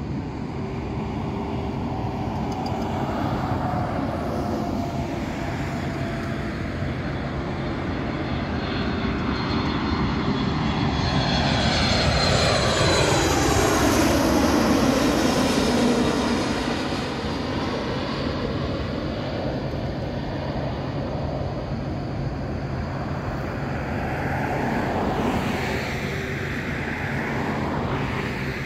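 Boeing 737 MAX 8 airliner's CFM LEAP-1B jet engines passing by. The sound grows loudest about halfway through, with a falling pitch as the plane goes past, then eases back to a steady rumble.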